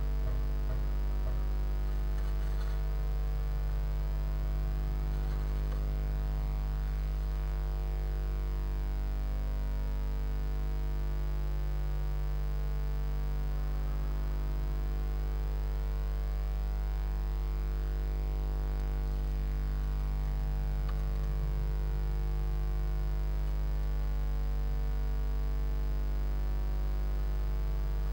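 Steady low electrical hum on the nest-box camera's audio, with a few faint scratches and rustles of a blue tit shifting in the moss-and-grass nest lining.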